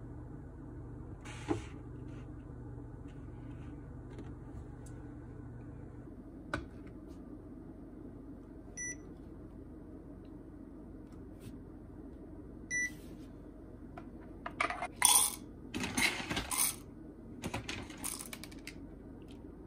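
Coffee beans poured into the grinder's catch cup on a digital scale, rattling in several quick pours over about four seconds near the end as an 18 g dose is weighed. Earlier, two short electronic beeps from the scale, and one click near the start from the Fellow Opus grinder's setting dial.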